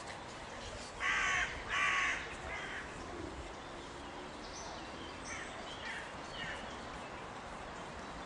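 A crow cawing twice, about a second apart, followed by fainter, higher bird calls.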